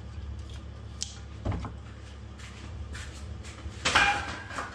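Handling noises: a few light knocks, then a louder clatter of knocks about four seconds in.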